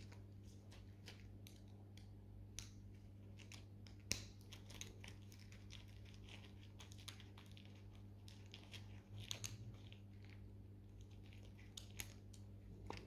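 Near silence: a steady low electrical hum with scattered faint clicks and crackles, one sharper click about four seconds in.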